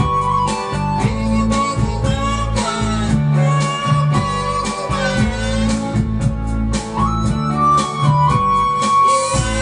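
Instrumental background music: a melody with notes that slide in pitch, over a steady bass line and a regular beat.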